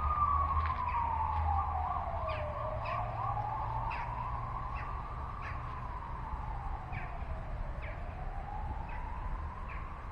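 A wailing siren, its pitch sliding slowly up and down with each sweep lasting a few seconds. Short high chirps come every second or so over a low steady rumble.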